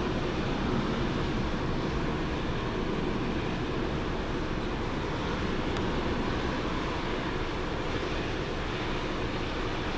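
Steady jet engine noise from an airliner at the airport, an even roar with a faint steady hum in it.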